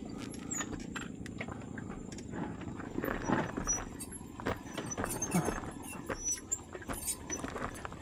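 Husqvarna Svartpilen 401 motorcycle rolling slowly down a rough, slippery dirt road: a low steady hum under irregular clattering knocks from the bike going over stones, with a few short, high brake squeaks.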